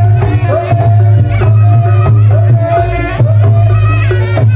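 Reog Ponorogo gamelan music: hand drums beaten in a quick, busy pattern under a reedy wind-instrument melody that slides between notes, over a steady low tone.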